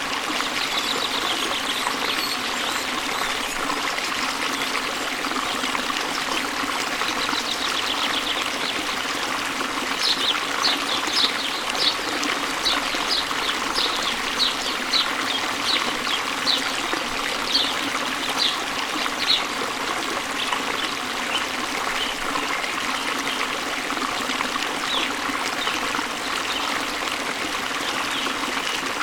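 Waterfall and stream water running steadily. A bird chirps a run of short, high notes, about two a second, from about a third of the way in to about two-thirds.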